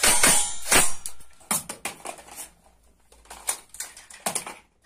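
A string of sharp clattering knocks and crashes of hard objects, loudest and closest together in the first second, then irregular single knocks with short quiet gaps between.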